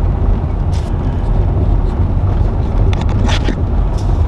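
Car driving across a dry salt flat, heard from inside the cabin: a steady low rumble of the engine and the tyres on the rough lakebed, with wind noise. Two brief knocks, about a second in and about three seconds in.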